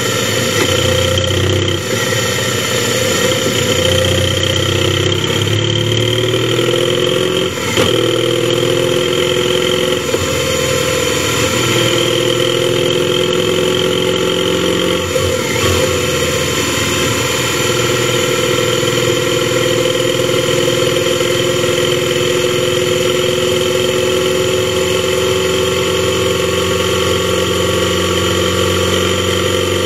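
Motorcycle engine running at road speed under a steady rush of wind on a helmet-mounted camera. The engine note climbs slowly and breaks off twice, about 8 and about 15 seconds in, as at gear changes.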